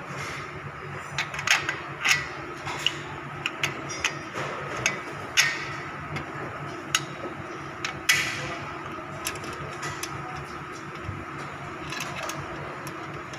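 Irregular clinks and knocks of steel bench-frame tubes and a bolt being handled and fitted together, the loudest about five and eight seconds in, over a steady faint hum.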